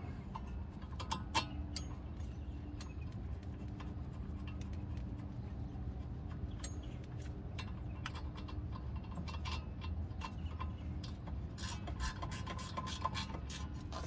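Hand ratchet clicking as a brake caliper bolt is tightened: a few scattered clicks, then a quick run of clicks near the end. A steady low hum runs underneath.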